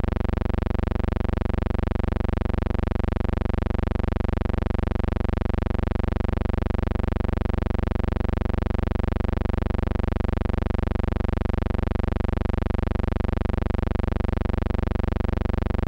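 A steady buzzing hum with many evenly spaced overtones, unchanging in pitch and level.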